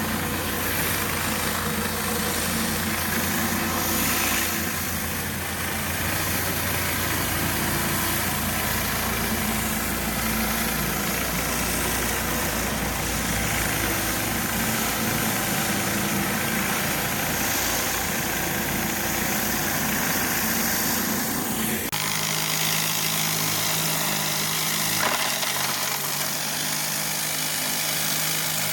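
Pressure washing rig's engine running steadily under the hiss of spraying water. About three-quarters of the way through, the engine note changes abruptly to a different steady hum.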